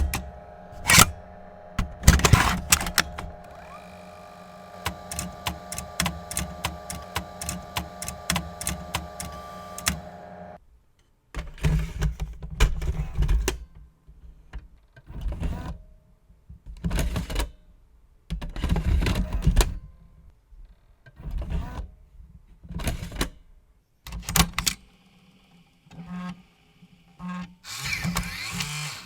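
A rhythmic montage of vintage Macintosh hardware sounds: first a steady hum with a fast, even run of sharp mechanical clicks, which cuts off suddenly. Then come a string of separate whirring, grinding bursts, each about a second long, one to two seconds apart.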